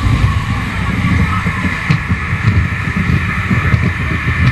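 Wind buffeting the microphone over a loud, steady rumble from a moving amusement ride.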